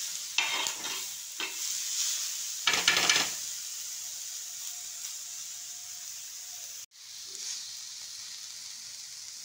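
Onion, tomato and spice masala frying in oil on a tawa griddle, a steady sizzle, with a steel spoon scraping and stirring it several times in the first few seconds. The masala is being sautéed until it browns. The sound cuts out for an instant about seven seconds in.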